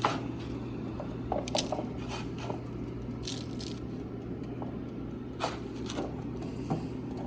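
Chicken pieces being tossed and pressed in a bowl of panko crumbs: a few short, soft rustles and scrapes over a steady low hum.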